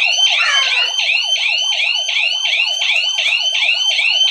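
Wireless home alarm siren (YISEELE kit, rated 120 dB) sounding loudly in a rapid electronic warble, about four pitch sweeps a second repeating without a break.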